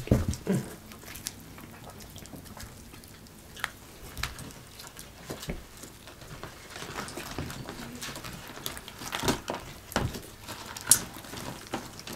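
Eating sounds: scattered wet clicks and smacks of chewing fried chicken and fingers pulling meat off the bones, busier toward the end.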